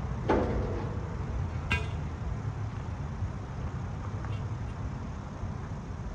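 Steady low rumble of an idling vehicle, with a heavy clunk just after the start and a short ringing metallic clank at about two seconds.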